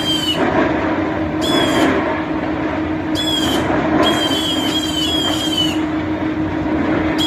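Loud chorus of calling animals: repeated high, slightly falling calls about half a second long, a few each second at times, over a dense steady din.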